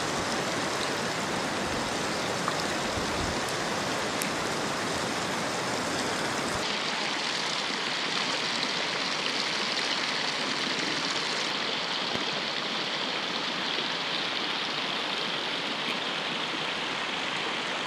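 Steady rushing of running water, an even hiss with no rhythm. Its tone changes abruptly about six seconds in, losing its low rumble, and shifts again a few seconds later.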